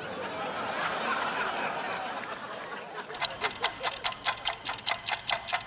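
Studio audience laughing, dying away about three seconds in. Then a mechanical dial kitchen timer clicking rapidly and evenly, about six clicks a second.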